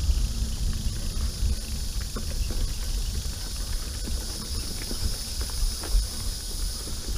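Mountain bike rolling fast along a dirt singletrack: low wind rumble on the microphone over tyre noise, with scattered rattles and clicks from the bike over the bumps.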